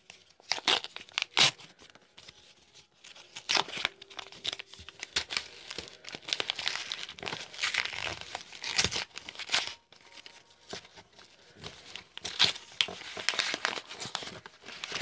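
A white packet of football trading cards being torn open by hand: irregular tearing and crinkling of the wrapper, coming in uneven spurts.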